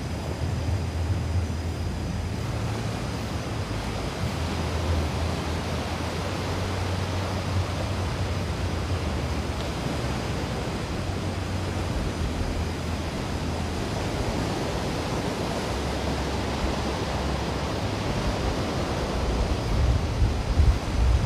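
Sea surf washing steadily on a sand beach, with wind buffeting the microphone in low rumbling gusts that grow stronger near the end.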